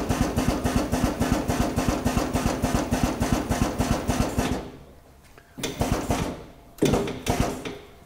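Powered rotation drive of a drum tipper head turning a clamped 200-litre plastic drum forward, running with a steady hum and a fast, even knocking rhythm of about eight beats a second. It stops about four and a half seconds in, then comes back in two short bursts.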